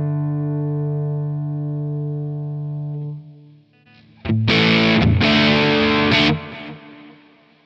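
Electric guitar played through a Neural DSP Quad Cortex running Amalgam's Marshall Super Bass 100 amp captures. A held crunch chord rings and fades out over the first three seconds. About four seconds in, after the switch to the lead scene, two loud distorted chords are struck in quick succession and then die away.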